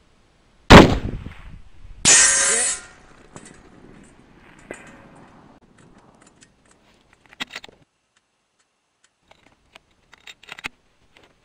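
A single shot from a .338 Lapua Magnum bolt-action rifle, very loud with a ringing tail, followed about a second and a half later by a bright ring of the bullet striking a steel target plate. A few quieter clicks and knocks follow later on.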